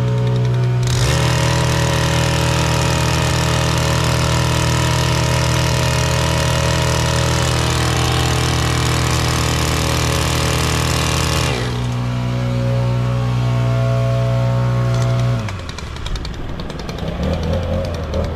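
An engine running steadily at an even pitch, turning harsher and louder about a second in for roughly ten seconds, then slowing and dropping in pitch near the end.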